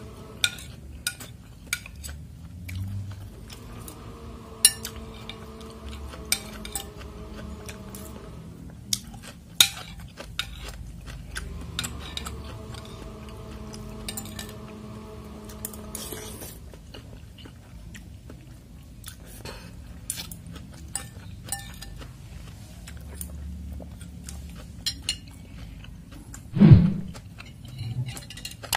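Metal spoon and fork clinking and scraping against a glass bowl of meatball soup, in many short separate clicks, with some chewing in between. One louder knock near the end.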